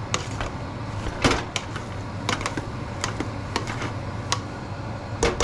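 Metal potato masher clicking and knocking against a stainless steel pot while mashing boiled potatoes with milk, in irregular strokes, with a louder knock about a second in and again near the end.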